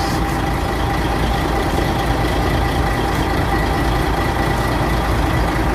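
Another truck's engine idling steadily: a low rumble with a thin steady whine above it.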